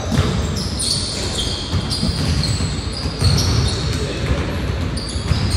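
Basketball game on a hardwood gym court: the ball bouncing, with many short high squeaks of sneakers on the floor as players run, in a large echoing gym.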